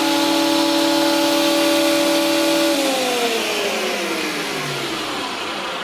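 Combination jointer-thickness planer running with no board on it, a steady motor whine with several tones. A little under three seconds in, it winds down, the whine falling steadily in pitch and fading as the motor and cutterhead coast to a stop.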